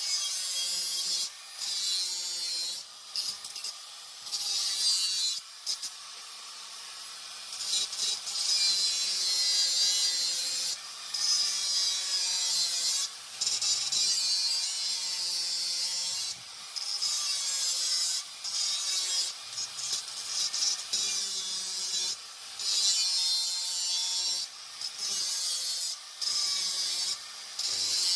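A power grinder grinding out the spot welds that hold a restrictor plate inside a Vance & Hines exhaust silencer, in repeated bursts of a couple of seconds with short pauses. Each burst is a rasping metal-on-metal grind, and the motor's pitch sags under load.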